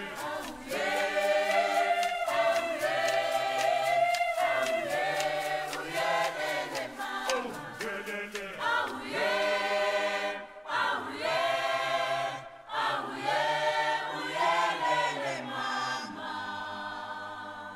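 Background music: a choir singing, over a light steady beat in the first half, fading down near the end.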